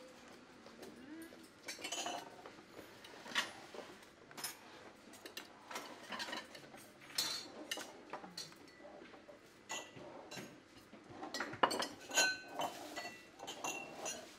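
Metal serving tongs and cutlery clinking against ceramic plates and bowls: a scatter of irregular clinks and taps, some with a brief ringing tone.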